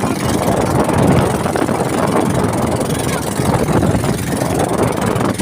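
Boat motor running steadily, mixed with a constant rushing noise.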